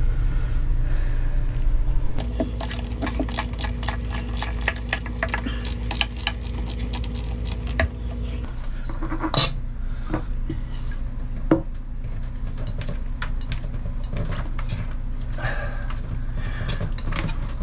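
Tools and metal parts clinking and knocking against the base of a Jabsco marine toilet as it is unbolted and pulled away, in irregular sharp clicks throughout. A low steady hum runs underneath from about two seconds in and cuts off at about eight and a half seconds.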